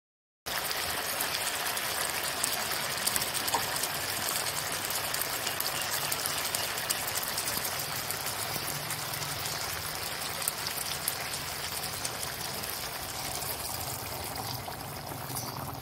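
Pork belly and wood ear mushrooms sizzling and bubbling in their sauce in a metal pan as a spatula stirs them, with a few sharper knocks. It cuts in abruptly about half a second in.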